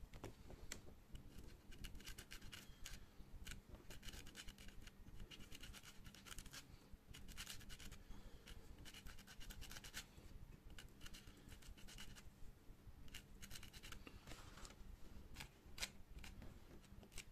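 Fingers peeling tape off a small plastic action camera: faint, irregular crackling and scratching in short clusters.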